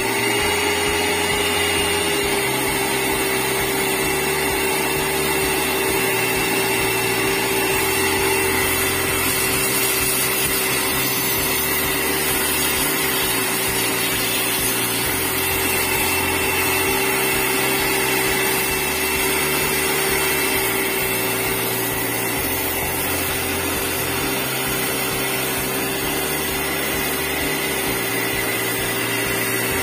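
Steam cleaner running steadily: a constant motor or pump hum with a hiss of steam jetting from the nozzle.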